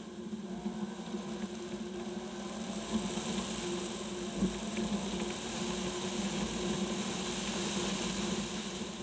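Steady drone of a Jaguar XK driving along a street, engine, tyre and wind noise picked up by a camera mounted on the outside of the car's flank.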